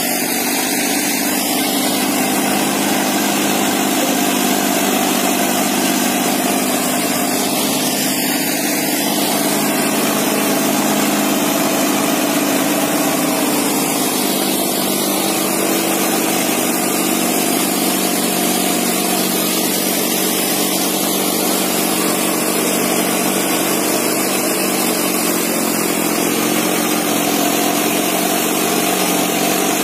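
Eicher 650 tractor's diesel engine running steadily under load as it pulls a double disc harrow through the soil.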